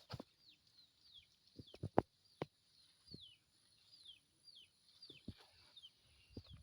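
A bird calling over and over with short, high, falling chirps, about two a second. A few sharp clicks or knocks cut in, the loudest about two seconds in.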